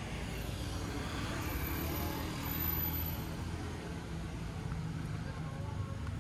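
Street traffic: car and motor-scooter engines running, with a steady low engine hum throughout and a vehicle passing close about two to three seconds in.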